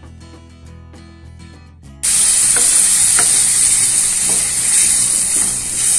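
Soft background guitar music, then about two seconds in a sudden loud sizzle as water hits hot ghee-roasted semolina in the pan, hissing steadily while a wooden spatula stirs and scrapes against the pan.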